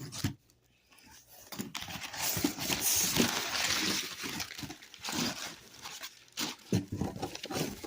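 Cardboard shipping box being handled and opened: a rasping scrape of about three seconds, then scattered knocks and rustles of cardboard and packing.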